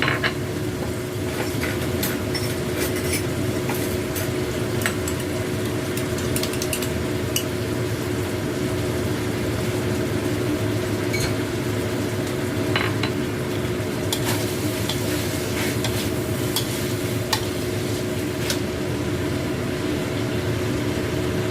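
A stir-fry of salted squid and tempeh in sauce sizzling in the pan, with scattered small pops and spits. Under it runs a steady low hum with a faint constant tone.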